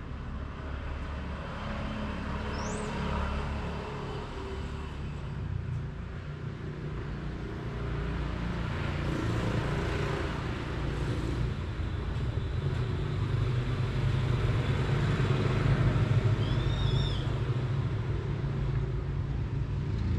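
Low rumble of road traffic, swelling as a vehicle passes in the second half, with a few short high chirps over it.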